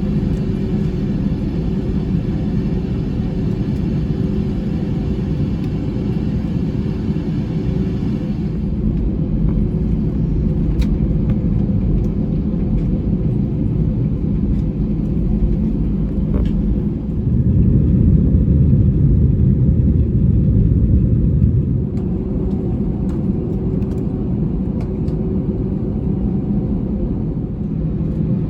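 Steady low rumble of jet airliner cabin noise aboard an Airbus A321-200, with a faint steady whine over it for the first several seconds. The rumble grows louder for about five seconds past the middle, then settles back.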